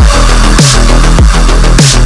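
Loud electronic intro music with a deep kick drum that slides down in pitch on each hit, about every 0.6 s, and a snare-like hit on every other beat.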